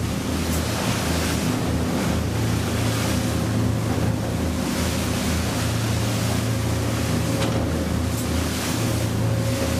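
Motorboat running at speed over rough sea: a steady engine drone under rushing wake water, with wind buffeting the microphone.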